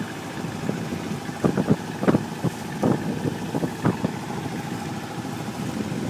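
Cape Dory 28 sailboat's small inboard diesel engine running steadily under way, with the rush of water and wind and irregular short knocks and buffets over it.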